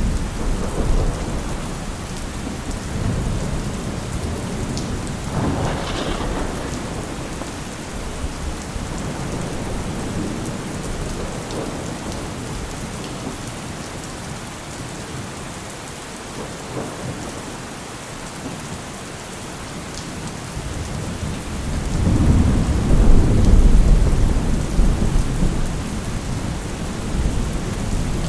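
Steady rain with thunder: a sharper thunderclap about six seconds in, then a quieter lull, then a long, loud, low rumble of thunder in the last few seconds.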